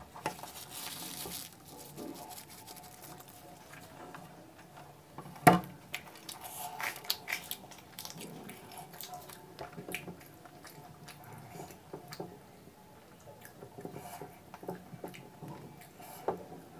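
Close-miked eating sounds: wet chewing and mouth noises of puri eaten with chole and curry, with the soft tearing of puri by hand. A single sharp knock about five and a half seconds in is the loudest sound.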